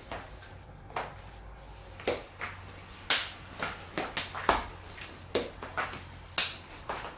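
Balisong (butterfly knife) being flipped, its handles clicking sharply and irregularly, about two clicks a second.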